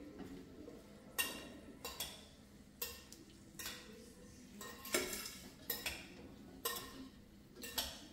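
Metal utensil clinking and knocking against a cooking pan about ten times at uneven intervals, as sautéed pieces of fish are lifted out.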